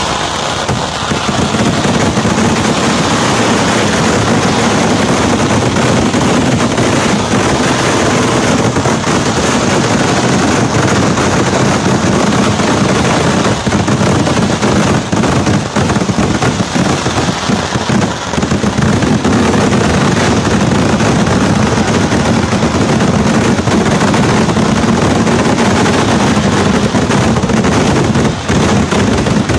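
Kerala temple-festival fireworks (vedikkettu): a loud, unbroken barrage of firecrackers and shells bursting so fast that the bangs run together into a continuous rattle, with a few brief lulls.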